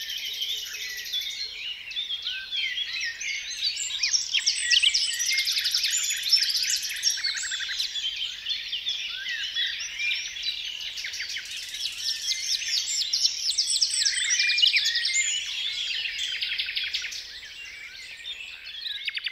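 A dense chorus of many songbirds singing and calling over one another: overlapping chirps, whistles and fast trills with no pause. It thins a little near the end before a final rapid trill.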